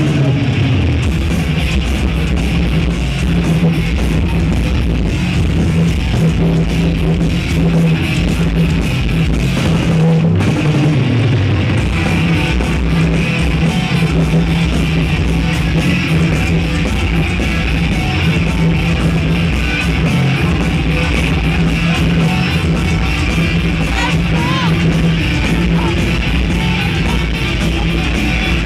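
Loud rock music with a steady beat, played without a break.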